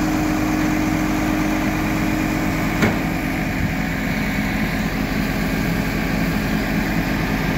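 Hook-lift truck's diesel engine running steadily while its hydraulics tip the container, with a single sharp knock a little under three seconds in.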